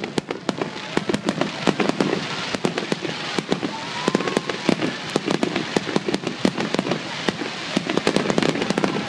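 A fireworks display finale: aerial shells bursting in a dense barrage, many sharp bangs in quick succession.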